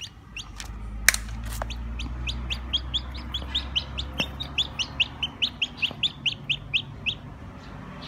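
Newly hatched chicken chick peeping: a fast run of short, high, rising peeps, about five a second, that builds from a few scattered calls into a steady string and stops about a second before the end. A single sharp click sounds about a second in.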